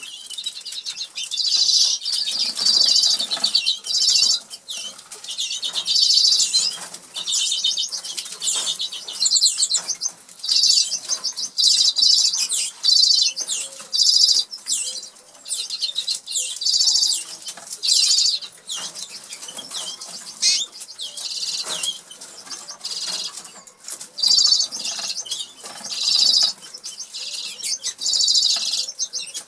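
Norwich canaries singing: short high-pitched trilled phrases repeating every second or two, mixed with small clicks of seed being pecked from a plastic feed dish.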